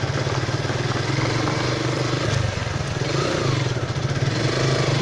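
Motorcycle engine running steadily while being ridden, easing off briefly about halfway through, under a broad rush of noise.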